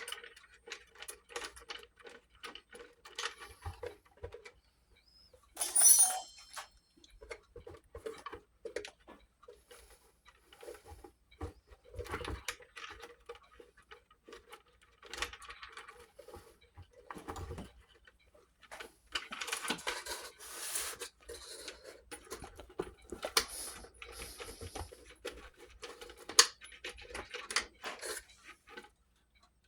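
Irregular small metallic clicks, taps and scrapes of wall-clock movement parts being handled and fitted back together, with one sharper ringing metal clink about six seconds in.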